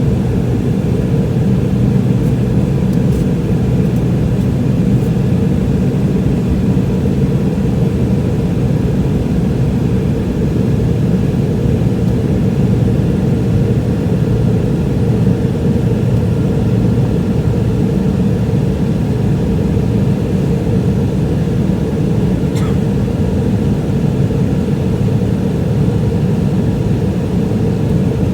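Steady, loud cabin rumble of a McDonnell Douglas MD-88 jetliner, its rear-mounted Pratt & Whitney JT8D turbofans running evenly, with no change in pitch or level.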